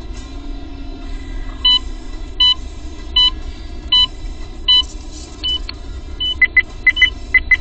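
Steady road and engine noise of a car driving, with electronic beeps over it. Five evenly spaced beeps come about three-quarters of a second apart starting about two seconds in, then a quicker run of shorter beeps near the end.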